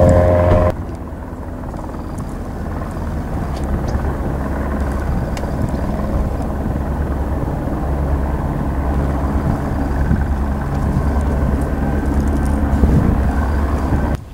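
Aircraft engine running with a steady low drone, slowly growing louder. Under a second in, a different, higher-pitched engine note cuts off suddenly.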